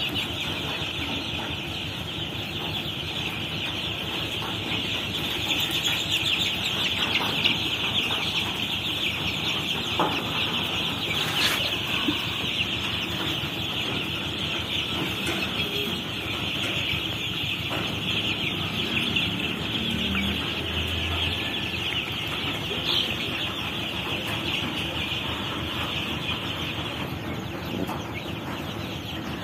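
A large flock of young chicks peeping all at once, a dense, unbroken chorus of high-pitched cheeps.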